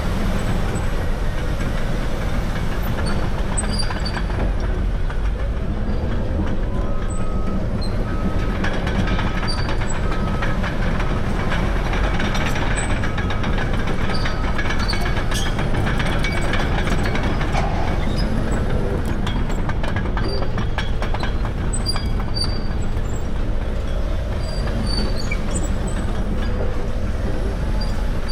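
Caterpillar D6R bulldozer working: its C9 diesel engine runs steadily under load while the steel tracks clank and squeal. A short run of even beeps sounds about a third of the way through.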